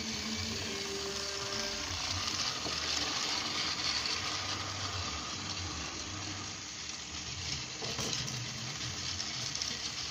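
Motorised toy steam train running around its plastic track: a steady whirring hiss from the motor and wheels with a low pulsing hum beneath.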